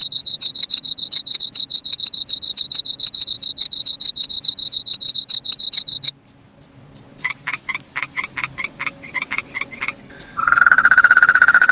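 Night insects calling: a fast, high chirping trill for about six seconds, then a slower series of lower-pitched pulsed calls, then a steady buzzing call starting near the end.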